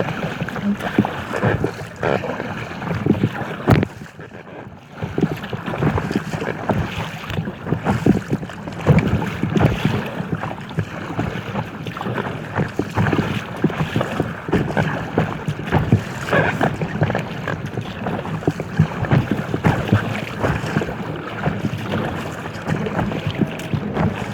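Water splashing and slapping against an inflatable kayak in choppy waves: an irregular run of small splashes and knocks that eases briefly about four seconds in.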